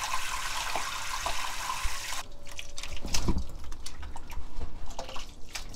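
Water rushing and sloshing as green seaweed is rubbed and rinsed by hand in a basin; about two seconds in the rushing stops, and water drains and drips from the seaweed lifted in a stainless steel strainer, with scattered splashes.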